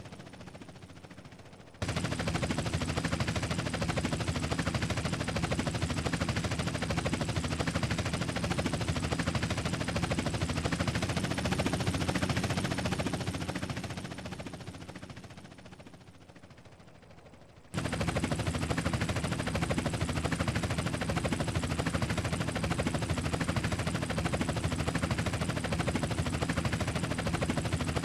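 Helicopter rotor blades chopping in a fast, steady beat. It starts suddenly, fades away about two-thirds of the way through, then cuts back in abruptly at full strength.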